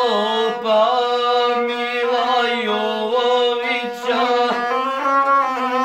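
A gusle, the one-stringed bowed Balkan folk fiddle, is bowed continuously. Its wavering, ornamented line is held over a steady lower note, the accompaniment to epic singing.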